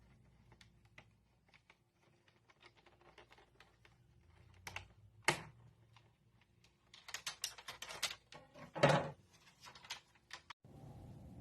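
A box and its packaging being handled and opened by hand: scattered small clicks and rustles, a sharp knock about five seconds in, then a flurry of clicking and rustling with a louder knock near nine seconds.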